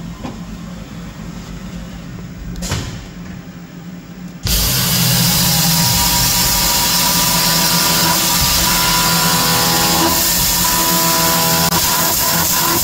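CNC mill running as the table moves the part into position; about four and a half seconds in, the air blast comes on loud and the end mill starts cutting a slot in 1020 hot rolled steel, a steady hiss with steady cutting tones under it.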